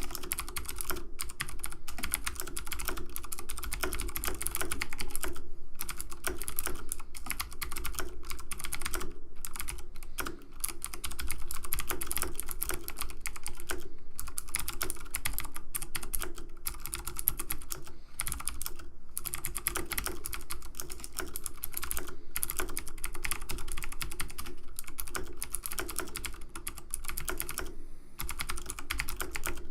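Computer keyboard keys typed in a fast, continuous stream of clicks and clacks.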